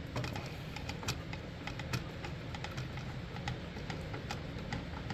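Irregular light metallic clicks and taps of a hand screwdriver turning a screw into a vending machine's bill acceptor mounting.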